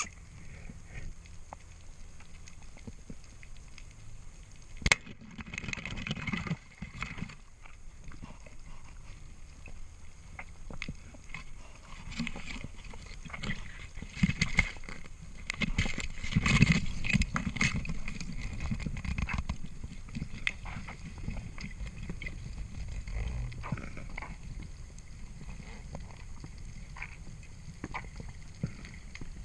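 Water noise from a spearfishing dive: sloshing and gurgling, with many scattered sharp clicks and louder splashy stretches about five seconds in and again in the middle.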